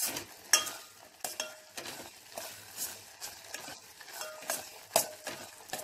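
Steel spoon stirring and scraping thick kalakand mixture around a steel pan. It makes irregular scrapes and clinks, one or two a second, some with a brief metallic ring. The curdled milk and sugar have cooked down to a thick, nearly set mass.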